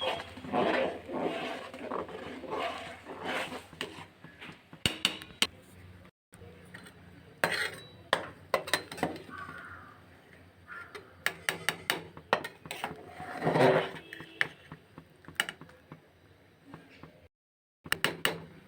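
A cooking utensil scraping and clinking against a pan as food is stirred, in irregular clinks and scrapes. The sound drops out completely twice, briefly.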